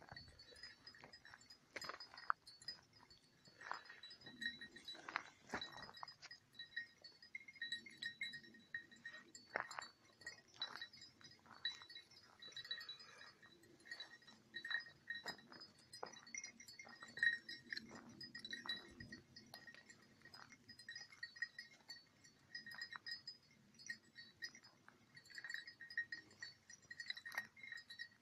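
A small bell jingling on and off in quick runs at one steady pitch, with short brushy crackles in between.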